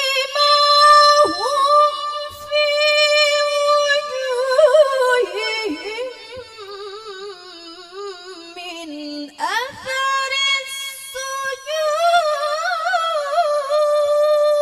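A woman reciting the Qur'an in the melodic qari'ah (tilawah) style into a microphone: long held notes with wavering ornaments. One phrase winds downward and breaks off about nine seconds in. After a quick breath a new phrase sweeps up and is held high.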